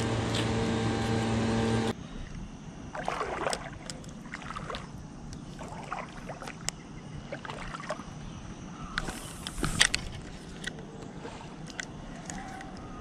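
A steady hum with several low held tones, cut off abruptly about two seconds in. Then quieter scattered clicks and rustles from a fishing rod and spinning reel being handled, with a short sharp hiss about nine seconds in.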